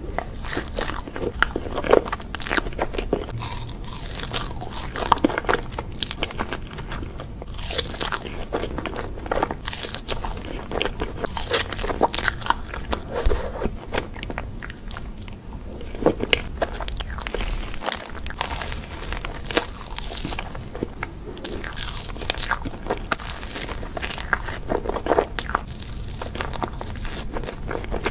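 Close-miked ASMR eating: crunchy bites and chewing of crisp food, with frequent sharp, irregular crunches.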